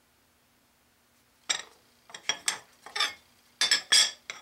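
A quick run of about eight light metallic clinks and taps, starting about a third of the way in: metal tools and parts being handled against aluminum stock clamped in a bench vise.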